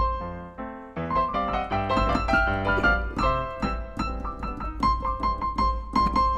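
Piano music: a run of struck notes over sustained chords, with one high note repeated.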